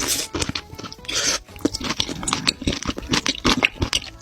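Close-miked eating sounds: irregular wet chewing, crunching and mouth smacks.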